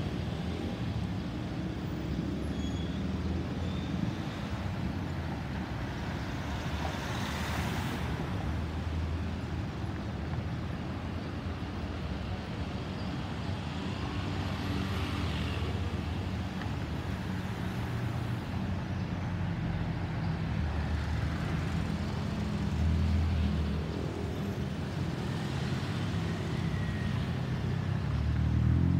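Boeing 737-800's CFM56-7B turbofan engines heard from a distance as a steady low rumble while the jet approaches, growing slightly louder toward the end.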